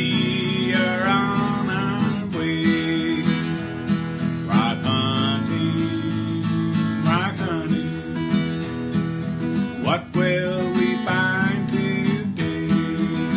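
Background music: an acoustic guitar song in an instrumental passage, with strummed chords under a wavering melody line.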